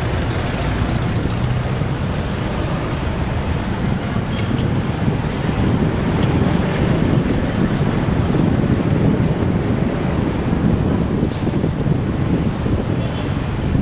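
Steady city traffic noise heard from a moving two-wheeler: the hum of vehicles all around mixed with road and wind noise, without horns or other sudden sounds.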